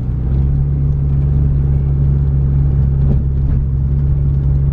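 Car driving, heard from inside the cabin: a steady low engine and road drone.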